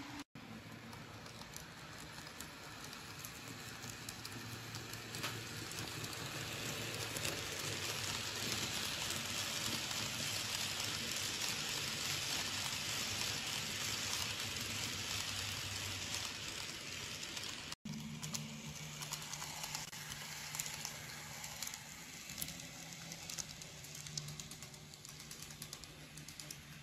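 Model trains running on the layout: a steady rattling patter of small metal wheels on the rails, swelling in the middle as a container freight train passes close, over a faint low steady hum.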